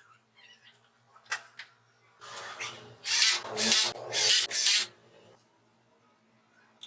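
Wood being rubbed by hand with an abrasive, four quick back-and-forth strokes at about two a second. A couple of light knocks and a softer rub come before them.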